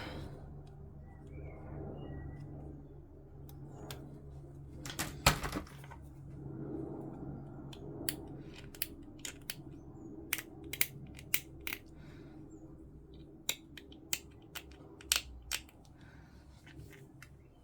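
Sharp clicks and taps of plastic model-kit parts and hobby tools being handled on a desk, a loud cluster about five seconds in and then a dozen or so separate clicks, over a low steady hum.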